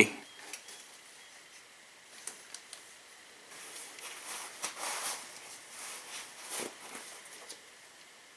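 Faint clicks and scraping of a socket wrench being fitted to and worked on the valve-adjuster locknut of a 150cc four-stroke overhead-valve engine while the valve clearance is set. A few light clicks come about two seconds in, then a few seconds of rubbing with two sharper clicks near the middle.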